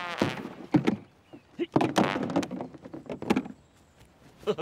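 Several separate knocks and scuffs as a small rowing boat and its oars are handled and shoved across grass. There are a few short effort noises from a voice about two seconds in.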